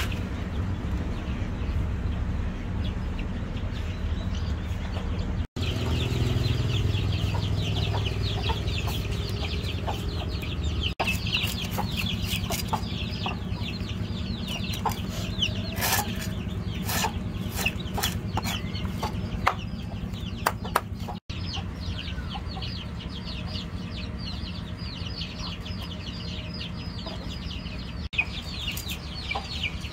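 Chickens clucking and cheeping with rapid high chirps, over a steady low background hum. Scattered sharp taps and scrapes come through, thickest in the middle, as a cleaver scrapes scales off a fish on a wooden chopping block.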